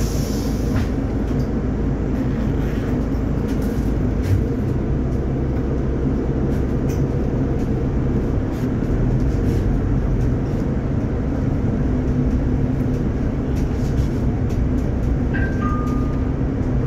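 Interior of a Solaris Urbino 12 IV Hybrid city bus moving at low speed: a steady drivetrain hum with road and body rattle. Two short high beeps sound near the end.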